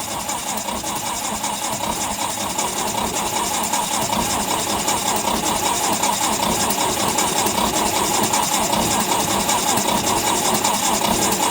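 Electric starter cranking the cold four-cylinder gasoline engine of a 1965 Lincoln SA-200 welder in freezing weather, turning it over steadily for about eleven seconds without it catching, then cutting off suddenly.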